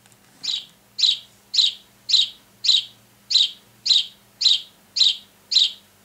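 Wild Republic Audubon plush house sparrow's squeeze-activated sound box playing a recorded house sparrow call: ten short chirps, evenly spaced at about two a second.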